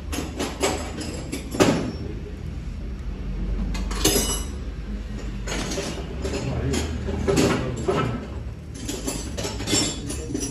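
Metal roller chain clinking and rattling as it is handled by hand while its connecting link is fitted, with scattered sharp metal clicks over a steady low hum.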